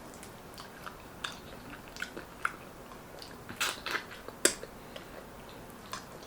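Close-miked eating sounds: chewing with scattered wet mouth clicks and smacks, a few louder ones a little past the middle.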